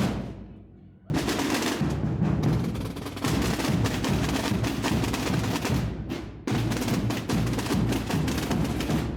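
Massed procession drums and bass drums beating together in a dense, continuous roll. Just after the start the drumming breaks off and its echo fades. About a second in it starts again, then dips briefly about six seconds in before carrying on.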